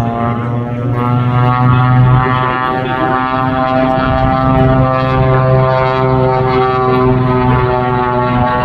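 Jet Waco biplane in flight overhead, its Pratt & Whitney R-985 radial engine and three-bladed propeller giving a loud, steady, pitched drone that wavers slightly. It grows louder over the first couple of seconds.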